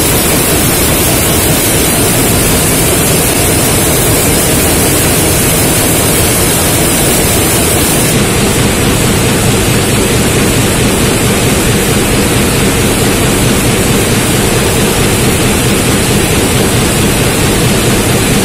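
Loud, steady roar of a can-making production line: machinery and wire-mesh conveyors carrying empty metal can bodies, a dense even noise with no distinct knocks or rhythm. The noise shifts a little in tone about eight seconds in.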